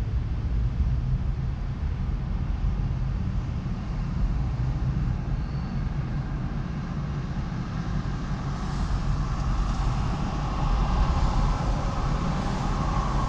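Car driving on a city street: a steady low rumble of road and engine noise, with a hiss that grows louder about two-thirds of the way through.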